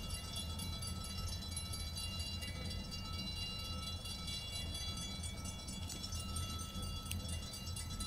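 Railroad grade crossing bell ringing steadily as the crossing signals flash, over a constant low rumble.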